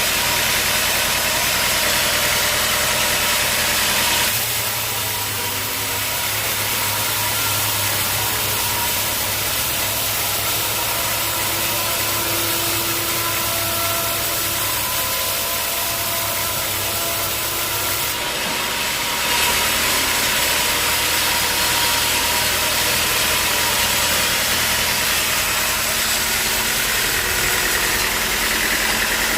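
Sawmill machinery running steadily, a continuous mechanical hum whose note changes about four seconds in and again about eighteen seconds in.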